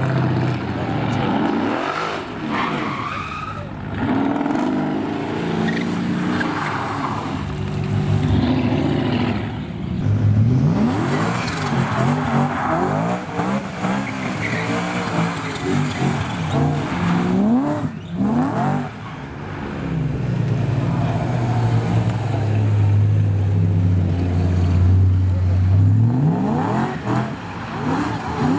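Cars drifting: engines revving up and down again and again while the tyres squeal and skid. A steady engine note is held for several seconds toward the end.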